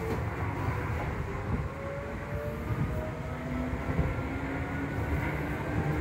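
Seibu 2000 series electric train heard from inside motor car MoHa 2155: its field-chopper-controlled traction motors and gearing whine in several tones that climb steadily in pitch as the train gathers speed. Under the whine is a constant rumble of wheels on rail.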